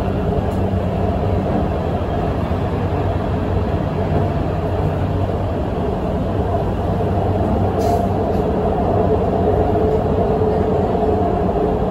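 Guangzhou Metro Line 7 train running, heard from inside the passenger car: a steady rumble with a low, even hum. There is one brief click about eight seconds in.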